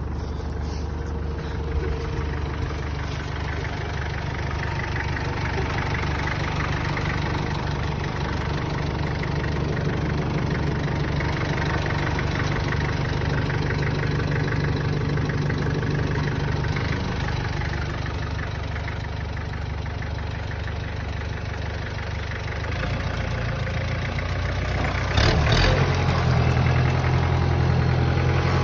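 Kubota tractor's diesel engine running steadily while pulling a tree stump on a chain. About three-quarters of the way through there is a short sharp knock, and after it the engine runs louder.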